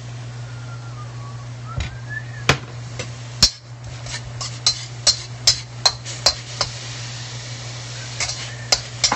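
A utensil knocking and scraping against a metal wok while diced chicken is stir-fried: sharp, irregular clacks begin about two seconds in and come in quick runs, with a steady low hum underneath.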